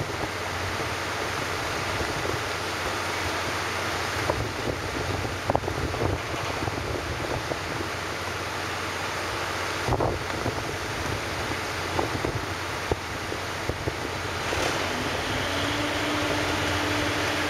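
Wind buffeting the microphone over the steady running of a car ferry's engine and water as the ferry comes in to its berth. There are a few sharp knocks, and about fifteen seconds in a steady low hum starts and holds.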